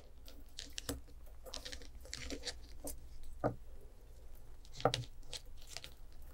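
Thin 1.2 mm craft wire being wound by hand around a 3.5 mm wire frame: light metallic clicks, ticks and scrapes, with two sharper knocks, one about halfway through and another about a second and a half later.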